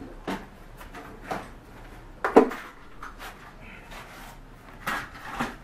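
A few separate knocks and clunks of things being picked up and set down on a workbench, the loudest about two and a half seconds in.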